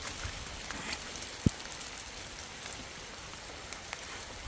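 Rain falling on orchard trees and grass: a steady, even hiss dotted with faint drop ticks. A single dull knock about a second and a half in.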